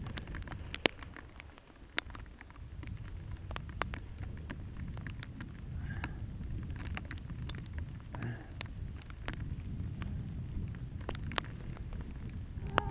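Mountain bike rolling over a rough trail: a steady low rumble of tyres and wind, with frequent irregular sharp clicks and knocks from the bike rattling over bumps.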